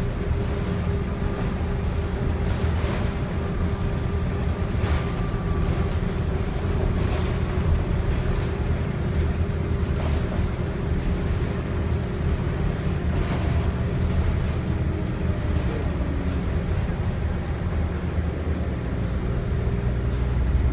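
Cabin noise of a 2006 New Flyer DE40LFR hybrid bus under way: its Cummins ISL diesel and Allison EP40 hybrid drive give a steady drone with a faint steady whine, with a few knocks and rattles from the cabin.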